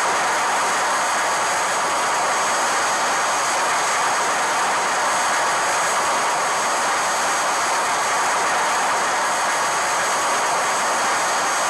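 A Mechagodzilla sound effect from the 1974–75 Showa Godzilla films: a loud, steady, jet-like rushing noise that does not change, with a faint high whine on top.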